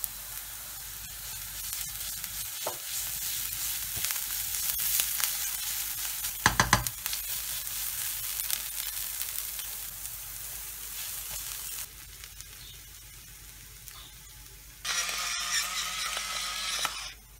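Onions and green chili peppers sizzling in a non-stick frying pan while a wooden spoon stirs and scrapes them, with a few sharp knocks of the spoon on the pan about six and a half seconds in. The frying goes quieter about twelve seconds in, then a louder stretch of sizzling and stirring comes near the end as a mashed-potato filling is turned in the pan.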